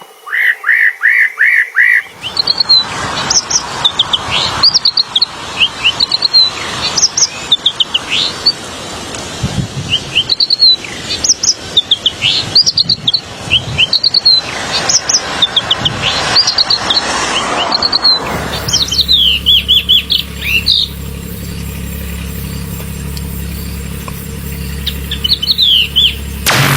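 Songbirds singing: a quick run of repeated notes, then a long series of short, high chirps and trills over a rushing background noise, thinning to occasional chirps over a steady low hum in the last third.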